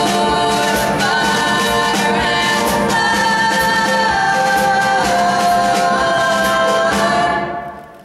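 Three female voices singing the song's closing lines in close harmony over acoustic guitar, piano and drums, holding long notes that step down in pitch about five seconds in. The last chord dies away near the end.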